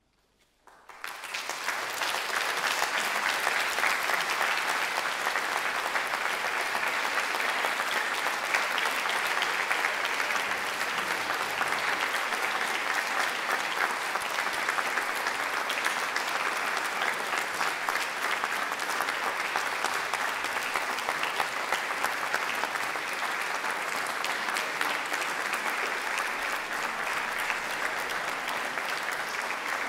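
An audience applauding: a moment of silence, then clapping that starts about a second in, swells quickly and runs on as dense, steady applause.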